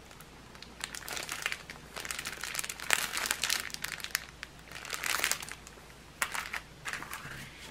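Clear plastic packaging holding small bags of diamond-painting drills crinkling in irregular bursts as it is handled and turned over, loudest about three and five seconds in.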